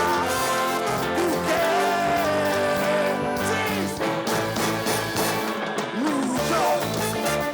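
Music: a band playing a song with a repeating bass line and held melodic notes.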